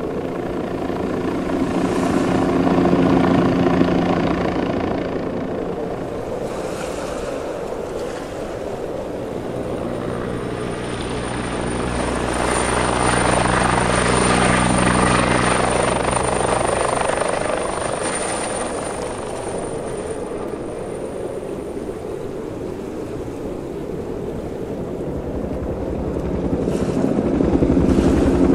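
Helicopters flying past one after another, rotor noise and turbine whine swelling and fading. The passes are loudest about three seconds in, in the middle, and again at the end, with a thin high whine through the middle pass.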